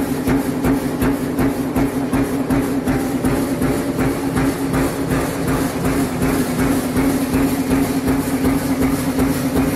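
Sheet-metal perforation press punching holes in steady, rapid succession, an even rhythm of sharp metallic strokes several a second, with the steady hum of the press's drive running underneath.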